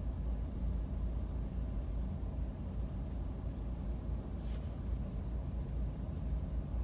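Steady low rumble heard inside a car waiting at a red light, from its idling engine and the surrounding traffic. There is a brief faint tick about four and a half seconds in.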